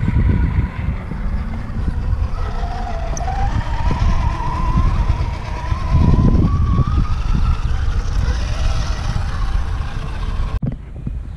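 Electric whine of an RC rock crawler's Hobbywing AXE brushless motor under load as the truck climbs rock, wavering and slowly rising in pitch, over a heavy low rumble. The sound drops off abruptly near the end.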